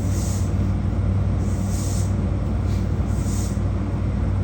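JR Kyushu 821 series electric train standing at a station, its onboard equipment giving a steady low hum. Soft hissing puffs come about every second and a half.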